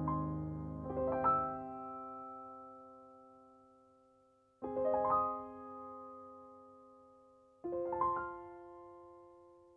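Soft solo piano music: three slow rolled chords, each played as a quick upward spread of notes and then left to ring and fade.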